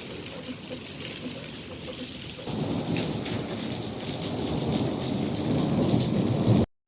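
Heavy rain pouring down, a steady hiss that grows louder and deeper about two and a half seconds in, then cuts off suddenly near the end.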